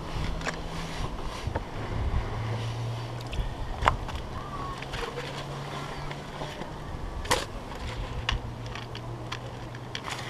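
A low engine hum that comes and goes, with a few sharp taps and knocks.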